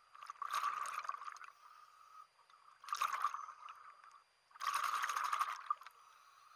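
Scuba regulator exhaust bubbles from exhaled breaths, heard underwater: three bubbling bursts of about a second each, roughly two seconds apart.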